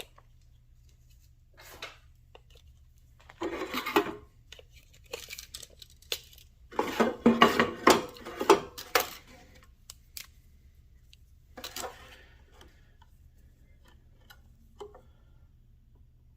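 Scattered metallic clinks, knocks and short bursts of clatter from tools and wood being handled while setting up a cut; no saw is running.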